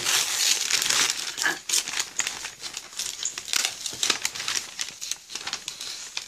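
Gift wrapping paper being crumpled and torn open by hand: a dense, irregular crinkling and rustling.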